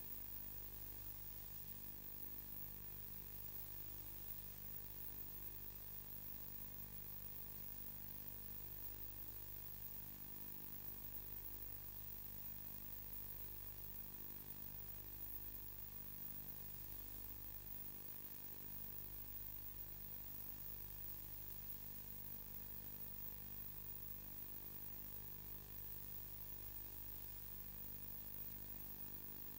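A steady low electrical hum with faint hiss, unchanging throughout. No engine, wave or voice sounds stand out.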